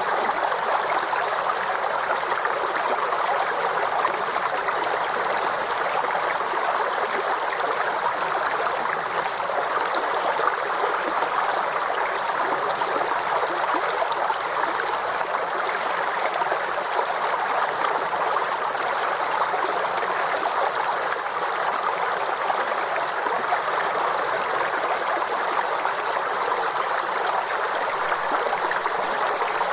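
A forest stream flowing steadily over rocks, a continuous babble of running water with no breaks.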